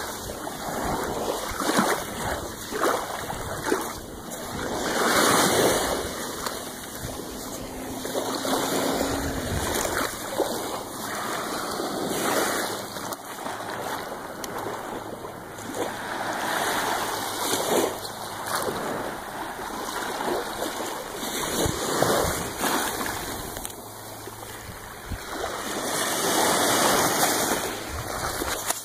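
Small ocean waves washing up and running back over a sandy beach, the surf swelling and fading every few seconds.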